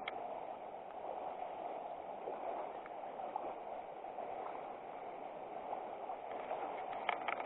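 River water running steadily, with a few short clicks near the end.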